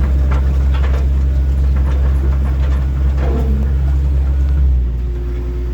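John Deere 135G excavator's diesel engine running steadily under work, with scattered knocks in the first couple of seconds and a brief squeal about three seconds in. Near the end the engine note drops a little.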